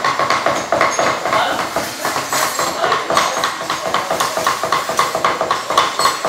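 Cleavers chopping on thick wooden chopping blocks: a fast, even run of knocks throughout.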